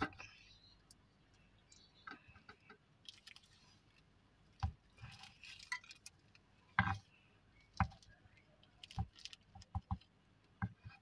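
Knife cutting a soft rice cake (lontong) on a wooden cutting board: a series of irregular knocks and clicks as the blade meets the board, with light scrapes and taps as pieces are lifted onto a plastic plate.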